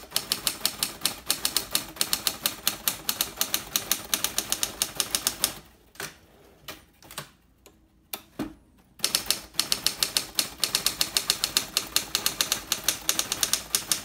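Hermes Ambassador standard manual typewriter being typed on fast: a quick run of sharp keystroke clacks as the typebars hit its rock-hard platen. About halfway through the typing stops for some three seconds, with only a few lone clacks, then picks up again at the same pace.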